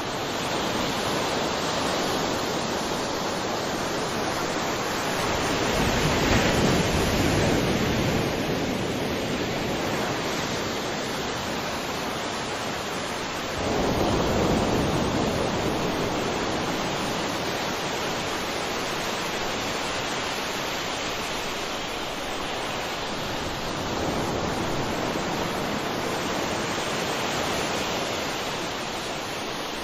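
Ocean waves breaking and washing on the shore in a continuous rush, with two larger waves swelling about six seconds and fourteen seconds in.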